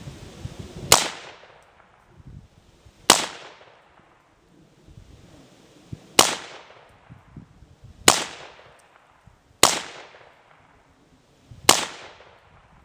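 Six single semi-automatic rifle shots from a Colt Sporter Lightweight AR-15 chambered in 7.62x39 mm, fired one at a time at uneven intervals of roughly two to three seconds, each with a short echoing tail. The rifle is feeding from a C Products 30-round magazine without a malfunction.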